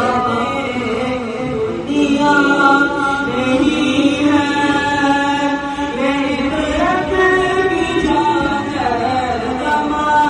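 A naat, an Urdu devotional poem in praise of the Prophet, sung unaccompanied by one voice in long, held, wavering notes.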